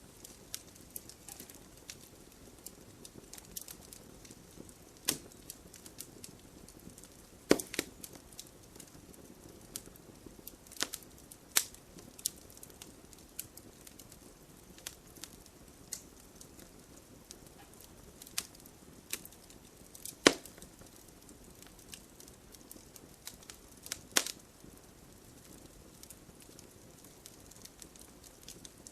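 Wood fire crackling: a low steady hiss with irregular sharp pops and snaps, a few much louder pops standing out.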